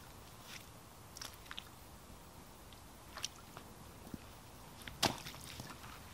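Footsteps of walking boots on a wet, muddy sandy track: scattered soft steps, with one sharper step about five seconds in.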